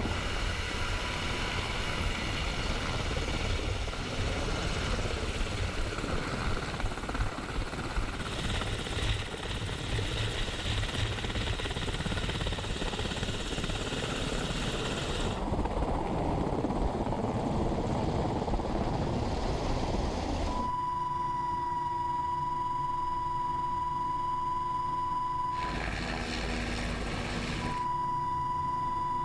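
MH-60S Sea Hawk helicopter running, with the rotor downwash buffeting the microphone in a heavy, rumbling din. About twenty seconds in, the sound changes abruptly to a steady high-pitched whine over a quieter hum. The whine breaks off briefly near the end and then returns.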